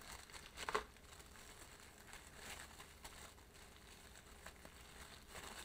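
Faint handling noises on a desk: a sharp click or knock under a second in, then soft scattered rustles and taps over quiet room tone.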